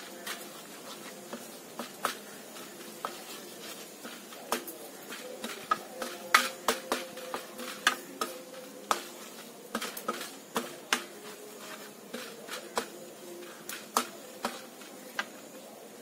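Wooden spatula knocking and scraping against a wide metal pan while stirring mango pickle: irregular sharp clicks, about one or two a second, thickest and loudest in the middle.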